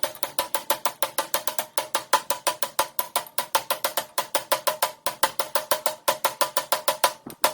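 Rapid, even knocking, about seven sharp strikes a second, each with a short ringing note.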